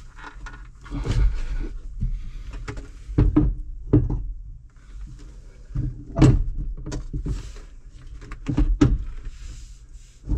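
Metal seat suspension base knocking and scraping against the tractor's floor brackets and bolts as it is shifted by hand to line up the mounting holes: about half a dozen dull clunks.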